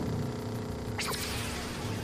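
Cartoon sound effect of an armoured van's engine running with a steady low hum, with a sudden sharp sound about a second in as the airborne van comes down.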